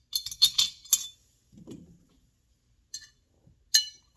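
Small metal parts and hand tools clinking against each other during reassembly of a chainsaw's carburetor: a quick run of clinks in the first second, then two more single clinks near the end.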